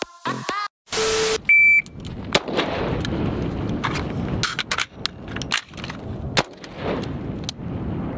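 A short, loud, high electronic beep, then wind buffeting the microphone, broken by several sharp cracks.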